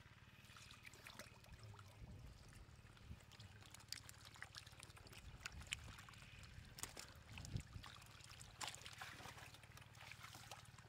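Faint wet clicks and small slaps from live catfish squirming against each other and the wood of a muddy trough, with a light trickle of water.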